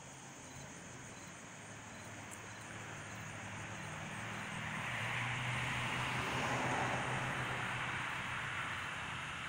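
Jet airplane flying high overhead: a broad rushing rumble that swells over the first six seconds or so, then eases slightly.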